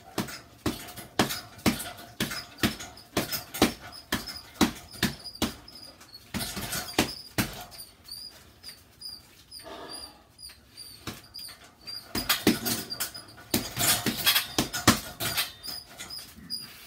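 Boxing gloves striking a hanging punching bag in rapid flurries, with a pause of a few seconds about halfway through. A faint high squeak repeats about twice a second.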